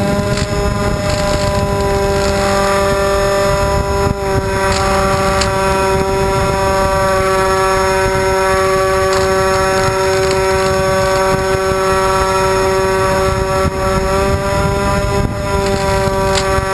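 Twin D2826-6 2200kv brushless motors spinning 6x4 propellers, giving a steady whine that dips briefly a couple of times, heard from on board the plane in flight with heavy wind rush on the microphone.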